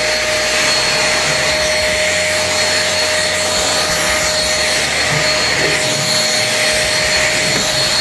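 Nequare A17 cordless stick vacuum running steadily, its floor head working a ribbed carpet door mat, with a constant motor whine over the rush of air.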